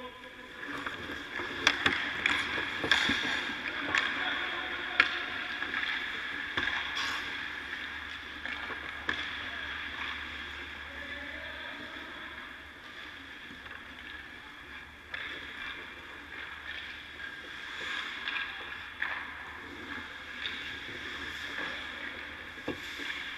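Ice hockey practice sounds: skate blades scraping the ice and sharp clacks of pucks and sticks, most of them in the first few seconds, over a steady arena hum.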